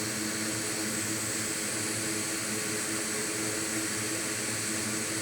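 Steady whooshing fan or blower noise with a faint constant hum.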